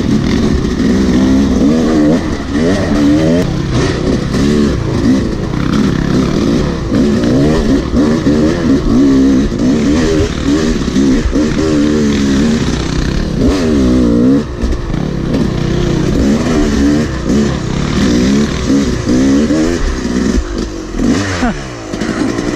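Yamaha dirt bike engine revving up and down over and over as the throttle is worked over rough, technical trail, heard up close from on the bike.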